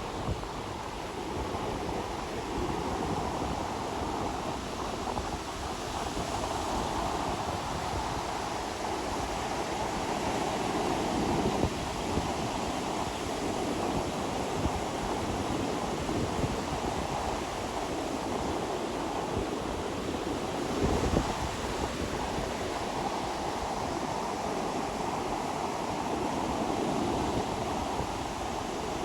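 Ocean waves washing onto a beach, a steady rush of surf that swells and eases, with a couple of brief louder surges.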